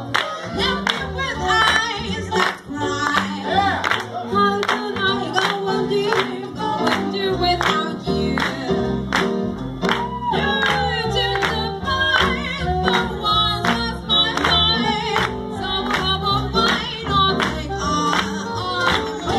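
Live swing band playing, with a woman singing over a steady beat.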